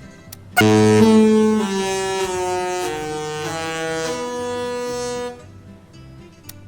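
The Disney Magic's musical ship horn sounding a tune as a run of loud held notes that step up and down in pitch. It comes in suddenly about half a second in, breaks off around five seconds, and starts a new phrase right at the end.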